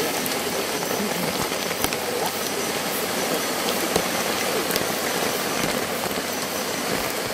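Steady rushing of water, an even continuous wash of noise, with scattered small ticks and clicks over it.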